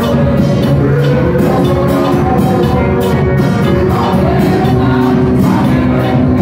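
Amplified live worship music with drums keeping a steady beat and a man's voice singing through a microphone.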